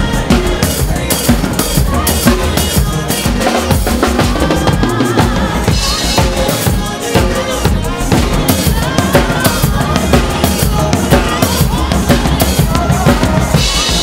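Acoustic drum kit played busily (bass drum, snare, toms and Sabian cymbals), many strikes a second, over a recorded backing track with a singing voice.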